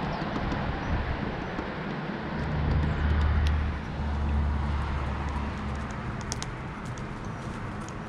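A car passing on a nearby street, its low rumble swelling about three seconds in and fading, over steady outdoor hiss. A few light taps come near the end, from a downy woodpecker pecking at the feeder.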